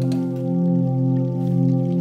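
Background music: a calm new-age piece of sustained tones with a low part that swells and fades about once a second.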